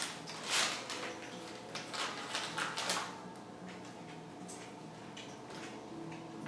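Paper rustling and crinkling as a sheltie puppy plays with it, in several loud bursts over the first three seconds, then softer, scattered rustles.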